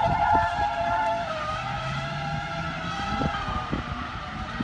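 Small gas-powered RC car engine running at high revs with a high-pitched buzz; the pitch falls over the first second and a half, then holds steady.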